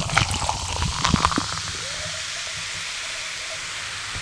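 Steady hiss, with a few soft clicks and knocks in the first second and a half and a faint wavering tone in the middle.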